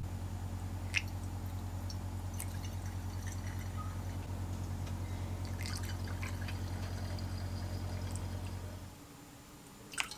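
Water poured through a mesh funnel into a small model steam boiler, trickling and dripping, with a few light clicks. Under it a loud, steady low hum runs until it cuts off suddenly about a second before the end.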